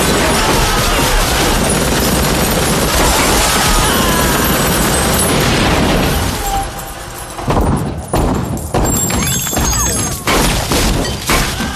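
Film action soundtrack: a continuous barrage of explosions and heavy gunfire under music. About six seconds in the barrage drops back and breaks into separate sharp bangs.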